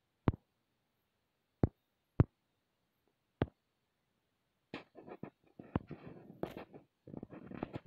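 Four separate sharp taps, then from about halfway on a stretch of scratchy rustling and clicks: fingers tapping and handling a smartphone, picked up by its own microphone.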